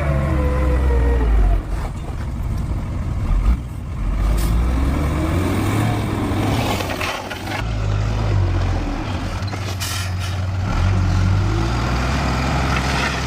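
Heavy diesel earth-moving machinery working, a low engine rumble that rises and falls with load. The engine note drops in the first second or so, and there are a few metallic knocks.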